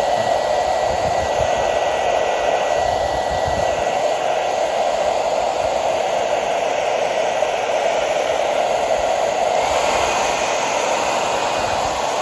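Handheld blow dryer running steadily: a continuous rush of air with a faint high whine, the sound brightening slightly about ten seconds in.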